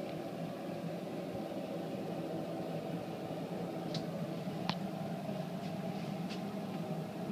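A steady mechanical hum, with a few faint clicks near the middle and toward the end.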